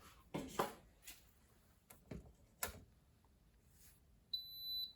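A few sharp clicks from the Hoover dryer's controls being worked, then a short, high electronic beep from its control panel near the end. No motor sound follows: the dryer will not start, a fault the technician traces to its run capacitor.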